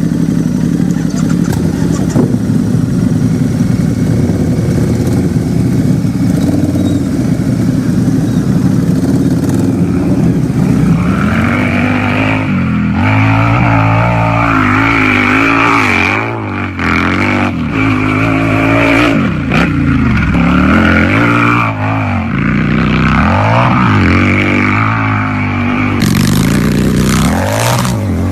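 Harley-Davidson motorcycle's V-twin engine idling steadily, then revved over and over from about twelve seconds in, its pitch rising and falling with each throttle blip.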